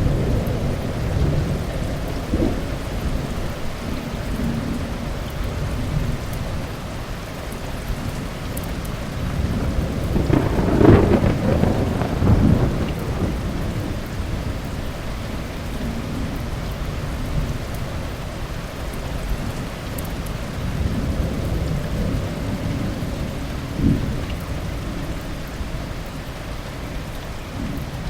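Thunderstorm: steady heavy rain under a continuous low rumble of thunder. About eleven seconds in, a louder thunderclap rolls for two or three seconds, and a short, sharp crack of thunder comes near the end.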